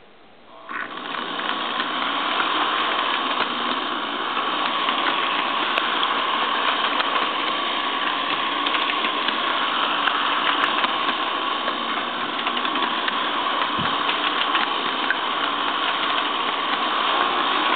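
Electric model train's motor starting about a second in, then running steadily with a constant whine as the train rolls along its track, heard from on board the train.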